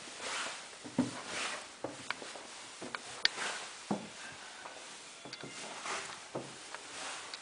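Footsteps climbing wooden stairs, soft knocks about once a second, with rustling in between.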